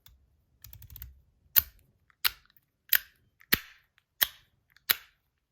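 Fidget toy with mechanical sliders being worked by hand: after some faint handling, six sharp clicks come at an even pace, about two-thirds of a second apart.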